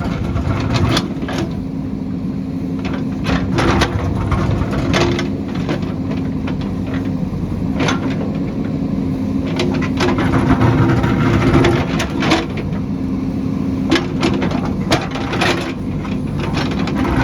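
JCB backhoe loader's diesel engine running steadily, with frequent sharp knocks and clatters throughout.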